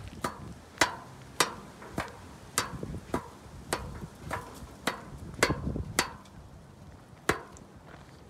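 Cylindrical engine air filter, a pleated element in a metal mesh case, knocked again and again against a hard body panel to shake out the dust clogging it. About a dozen sharp knocks come roughly one every half second, with a longer pause before the last one.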